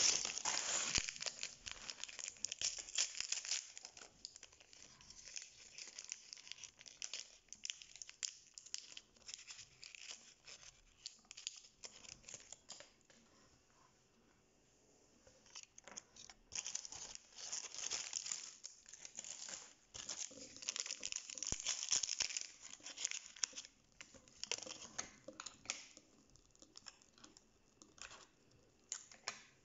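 Plastic wrapping crinkling and tearing as small doll-toy packets are unwrapped by hand, in irregular bursts with a quiet pause of a few seconds in the middle.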